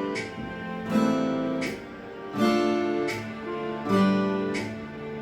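Acoustic guitar playing chords, a full chord struck about every second and a half with lighter plucked notes ringing between them.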